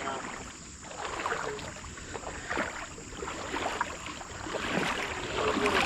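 Irregular splashing and sloshing of creek water.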